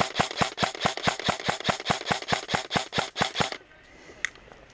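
Airsoft rifle firing a rapid string of shots, about six a second, which stops about three and a half seconds in. One faint click follows.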